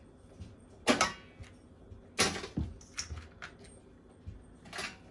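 Kitchen knife chopping cooked crab on a wooden cutting board: a handful of sharp knocks and cracks, the loudest about one and two seconds in.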